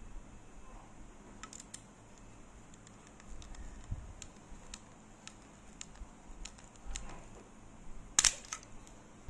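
Small scattered clicks and taps of a screwdriver and wire cores being worked at the terminal screws of a plastic wall socket, with a louder cluster of clicks about eight seconds in.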